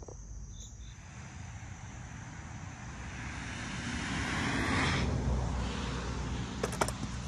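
A car passing on the road: a rush of tyre and engine noise that swells to a peak about five seconds in and then fades, over a low steady rumble, with a few sharp clicks near the end.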